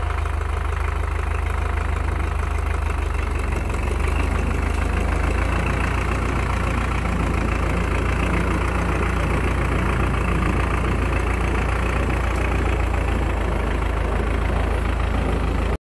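Belarus MTZ-82 tractor's four-cylinder diesel idling steadily, cold-started in about −25 °C, a little louder from about four seconds in.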